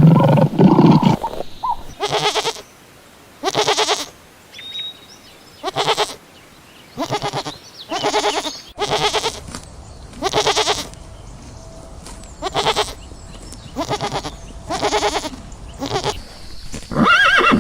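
An animal bleating over and over: about a dozen short calls, roughly a second apart. A loud, deep sound runs over the first second.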